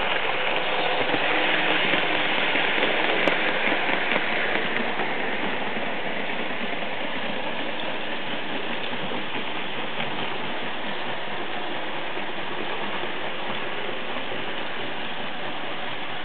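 Märklin model trains running on the layout, the E 40 electric locomotive model among them: a steady rolling rattle of wheels on track with motor hum, a little louder in the first few seconds.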